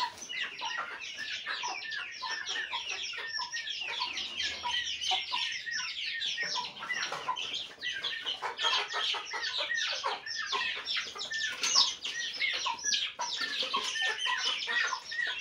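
A brood of Aseel chicks peeping non-stop, a dense run of short, high, downward-sliding chirps, many each second.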